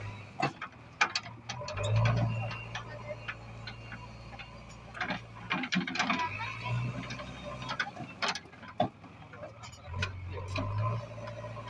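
JCB 3DX backhoe loader's diesel engine running with a steady low hum that swells louder three times as it works under load, with frequent sharp clicks and knocks from the machine as it levels the soil.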